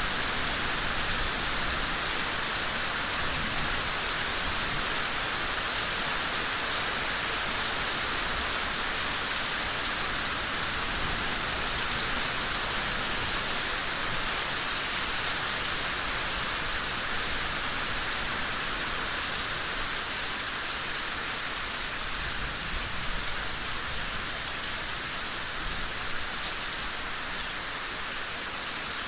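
Steady rain falling, a continuous hiss of drops with a few distinct drips.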